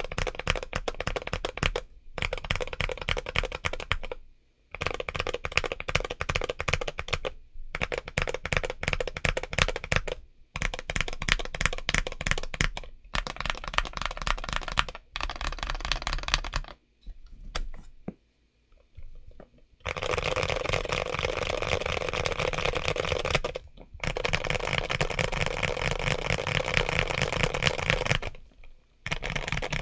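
Typing on a modded James Donkey A3 mechanical keyboard with Gateron Orange switches and MT3 profile ABS keycaps: fast runs of keystrokes in bursts of a few seconds with short pauses. Around the middle the keystrokes thin out to a few scattered presses, then steady fast typing runs through the last third.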